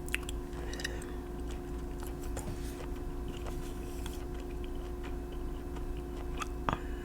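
Scattered soft clicks and small taps at an irregular pace, with a slightly sharper click near the end, over a steady low electrical hum.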